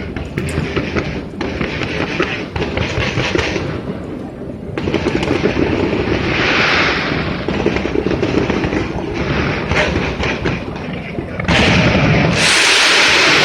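Fireworks bursting in rapid succession, a continuous mix of booms and crackling. It grows louder about eleven and a half seconds in, with a dense rush of crackle near the end.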